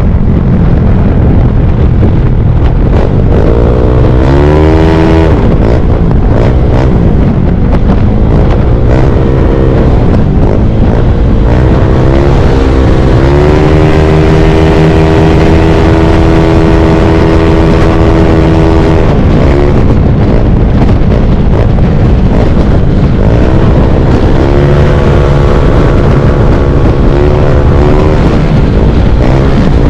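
Heavy wind rushing over the microphone of a Honda LEAD125 scooter at speed, with the drone of scooter engines underneath. The engine pitch rises a few seconds in, holds steady for several seconds in the middle, and climbs again near the end.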